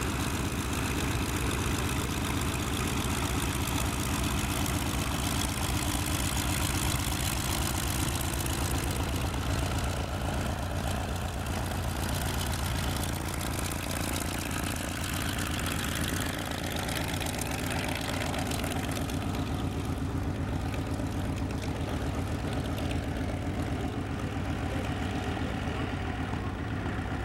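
Grumman F8F Bearcat's Pratt & Whitney R-2800 radial engine running at low power while taxiing, a steady deep propeller-driven rumble with a fast even pulse. It grows more distant in the second half as the plane rolls away.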